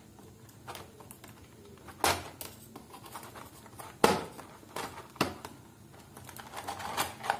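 Clear moulded plastic packaging tray crinkling and scraping as wireless earbuds and their neckband are pulled out of its slots, with a few sharp plastic clicks.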